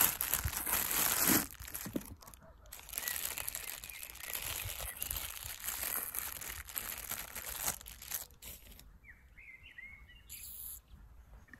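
Clear plastic bag crinkling and crackling as it is pulled off a toy tractor, for about the first eight seconds. After that a few short bird chirps are heard.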